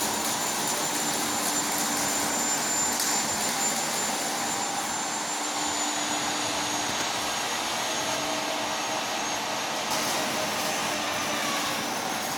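Welding arc burning steadily: an even crackling hiss with a thin high whine running through it and a few brief pops.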